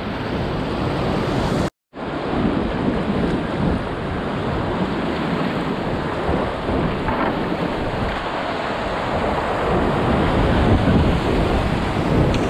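Whitewater rapids rushing around a kayak, heard close from the boat, a dense steady roar of churning water that grows a little louder near the end. The sound cuts out completely for a moment about two seconds in.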